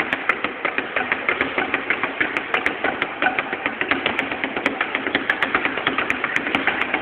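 Punching ball being hit fast and repeatedly: a steady, rapid rattle of knocks, several a second.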